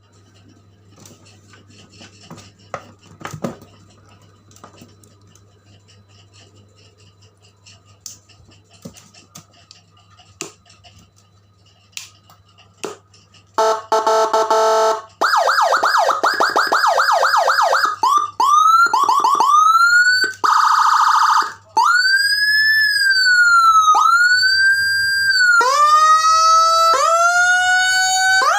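CJB 200E electronic siren module loaded with Whelen HHS tones, cycling through its sounds. Faint clicks and a low hum come first; about halfway in, a loud steady horn-like blast starts. It is followed by rapid chirping yelps, rising whoops, another horn blast, a slow wail rising and falling, and fast rising sweeps near the end.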